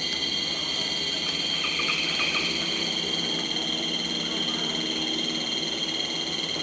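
Dense night-style chorus of frogs and insects: a continuous high-pitched shrill, with a cluster of short repeated calls about two seconds in.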